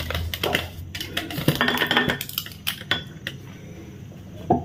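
Dishes and bowls clinking and knocking on a kitchen counter as they are handled, a quick run of clicks for about three seconds that then dies down.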